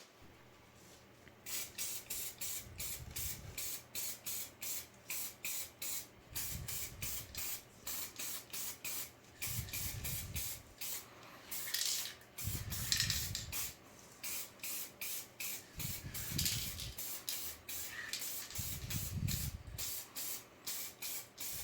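Aerosol can of gold spray paint spraying in short rapid spurts, about three a second, with a few longer sprays mixed in.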